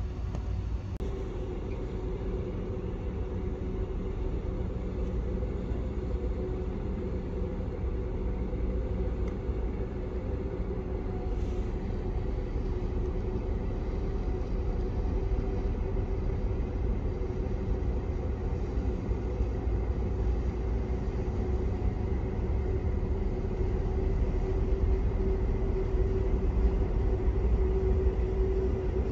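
A large Sardinia Ferries car ferry's engines running as a steady low rumble with a humming tone, growing slowly louder as the ship comes closer.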